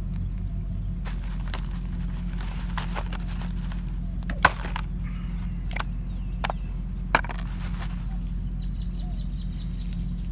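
Hands handling a small plastic toy capsule and slime-covered figure: scattered sharp plastic clicks, the loudest about four and a half seconds and seven seconds in, and brief rustling over a steady low hum.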